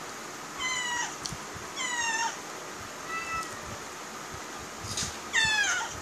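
Pet cat meowing four times, each call sliding down in pitch; the third is faint and the last is the loudest.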